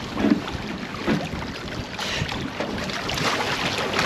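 Water sloshing and splashing against a boat's hull as a large halibut stirs at the surface, with wind on the microphone. The splashing grows louder in the last couple of seconds.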